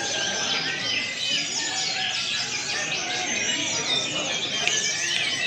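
Many brown-chested jungle flycatchers singing at once, a dense, unbroken mass of overlapping chirps, trills and clear whistles, over a murmur of people talking.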